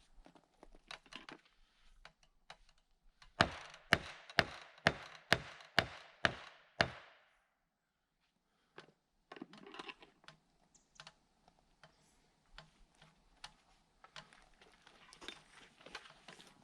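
Hammer driving a nail into wood framing: about eight sharp, evenly spaced blows, two or three a second, followed after a pause by lighter scattered taps and knocks.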